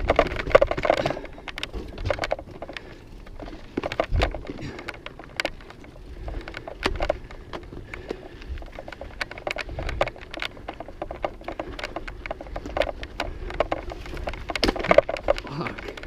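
Mountain bike clattering over a rocky trail: many irregular sharp clicks and knocks from the bike and tyres on rock, with gusts of wind rumbling on the microphone, heaviest near the start and again near the end.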